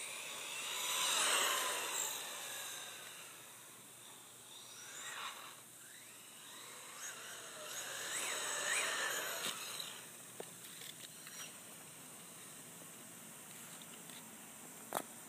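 Team Associated RC18T 1/18-scale RC truck with a brushless motor driving past, its high motor whine rising and falling as it speeds up and slows, three times. A sharp click near the end.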